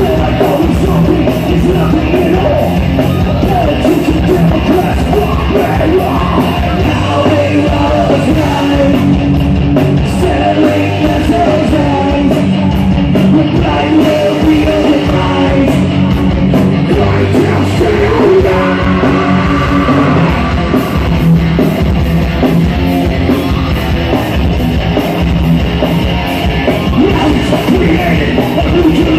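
Rock band playing loud live: electric guitars, bass guitar and drums, with a singer's vocals over them.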